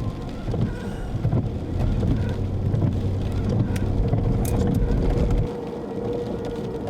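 Car road and engine rumble heard from inside the moving car, under a steady single-note outdoor tornado warning siren that grows louder near the end.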